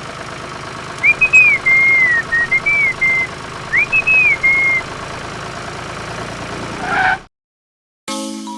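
A person whistles a short tune of swooping, rising and falling notes over a steady idling engine. Everything cuts off suddenly near the end, and music starts.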